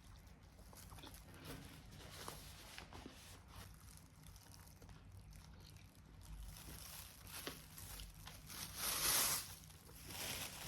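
Eating a banh mi: faint handling and chewing sounds, with a short crackle about seven and a half seconds in and one louder crackling rustle about nine seconds in.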